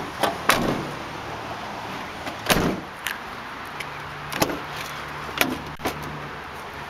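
Van door sounds: a heavy thud about two and a half seconds in, then sharp clicks as a Chevrolet Express van's front passenger door handle and latch are pulled and the door swings open.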